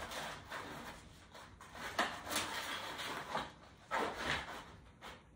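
Rustling and light knocks as decorations such as pinecones and dried orange slices are moved about and set down in a wooden dough bowl on a wooden table, louder about two and four seconds in.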